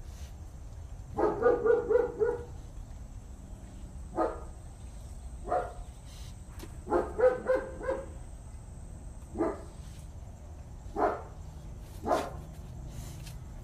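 Dog barking in bouts: a quick run of barks about a second in, a couple of single barks, another quick run around seven seconds, then three spaced single barks.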